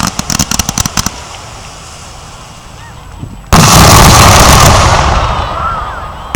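Fireworks finale: a rapid string of crackling reports for about the first second, a short lull, then a sudden loud boom about three and a half seconds in that rumbles on and slowly fades.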